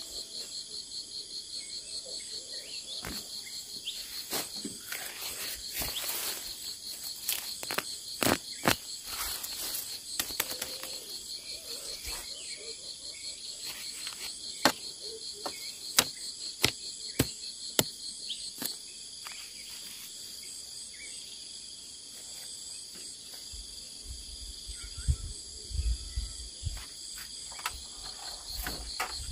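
Insects chirring steadily in a high, fast-pulsing chorus. Over it come many sharp snaps and rustles of leafy plant stems being picked by hand, most of them in the first two-thirds, and a few dull thumps near the end.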